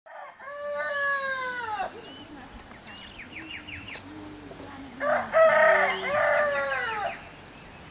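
A rooster crowing twice, about four seconds apart, the second crow louder, each falling in pitch at the end. Faint quick bird chirps come between the crows.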